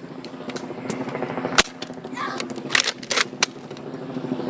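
Toy Nerf blasters firing: a few sharp snaps spread over the seconds, the loudest about a second and a half in, over a steady low hum.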